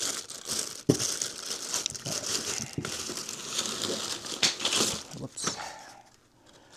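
Packaging wrap being crinkled and crumpled by hand while a golf club box is unwrapped, with a sharp knock about a second in; the crinkling dies away near the end.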